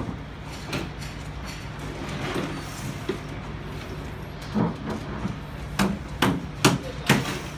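Sharp knocks, about two to three a second, starting about halfway through, as a marble wall panel is tapped into place; a steady low hum runs underneath.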